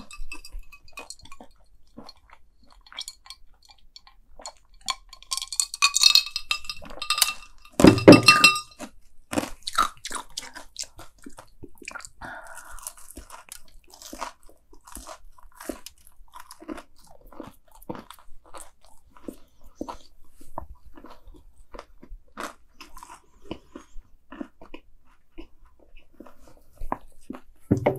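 Chewing and crunching of deep-fried Cheetos mac and cheese balls: a run of small crackly crunches and mouth sounds, with one louder bite about eight seconds in.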